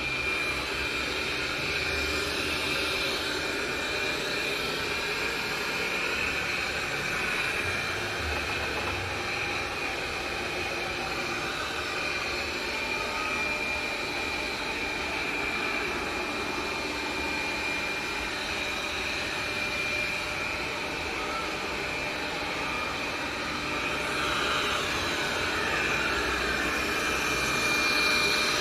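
iNIC i9 robot vacuum running: a steady motor whine with a high tone over a whooshing hiss.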